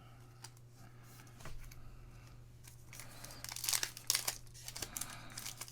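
Trading card pack wrapper crinkling and being torn open, starting about three seconds in after a quiet stretch.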